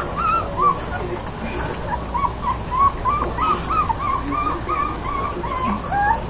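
Young puppies whimpering in a steady run of short, high squeaks, about three a second.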